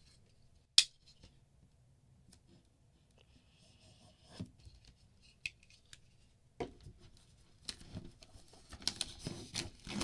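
A folding pocket knife's blade clicks open sharply about a second in. Scattered small clicks and scraping follow as the blade cuts the plastic shrink wrap on a boxed tablet, and the wrap's crinkling and tearing grow louder over the last few seconds.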